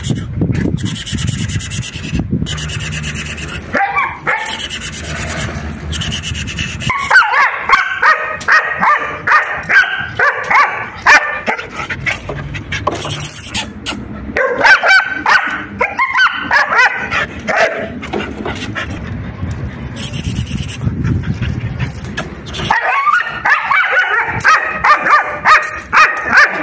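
German Shepherd barking repeatedly in quick runs, the barks getting louder and denser about seven seconds in.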